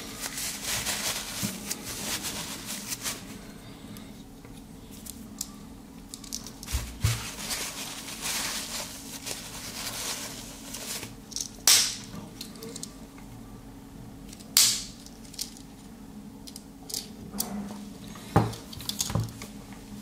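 Handling of a red Victorinox Swiss Army knife and a paper tissue: rustling and scraping, then three sharp clicks about two to four seconds apart in the second half.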